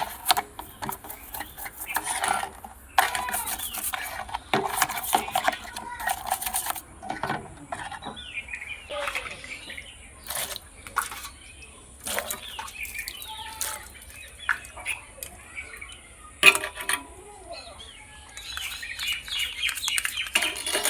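Small cleaning tools working over a plastic toy jet caked in mud: a busy run of sharp clicks and knocks against hard plastic mixed with scraping, and short squeaks in the middle.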